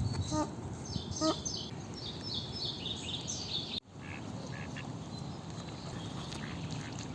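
Birds calling: a quick run of high, falling chirps over the first few seconds, with a couple of short lower calls near the start and a few fainter calls later.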